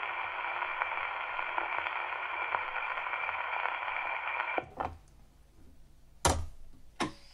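Surface hiss and crackle of a shellac 78 playing through an acoustic HMV gramophone's exhibition soundbox after the song has ended. It stops abruptly about four and a half seconds in as the needle is lifted off. Two sharp clicks follow as the tonearm and soundbox are handled.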